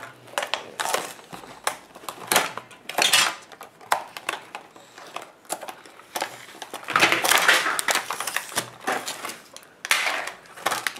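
Plastic blister packaging and cardboard backing of a Hot Wheels car crinkled and torn open by a small child's hands, in short irregular crackles with a longer stretch of tearing about seven seconds in, plus light clicks against a glass tabletop.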